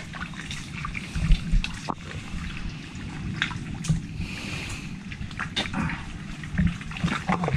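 Shallow muddy water splashing and trickling as hands dig through it for mud clams, with a few sharp knocks.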